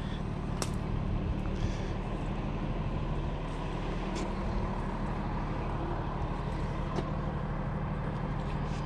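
A truck engine idling steadily nearby, a low, even hum, with a few light clicks over it.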